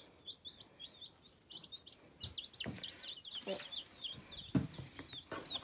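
A brooder of baby chicks peeping continuously: many short, high cheeps overlapping one after another. A few soft rustling knocks come in from about two seconds in, as a hand works among the chicks in the wood-shavings bedding.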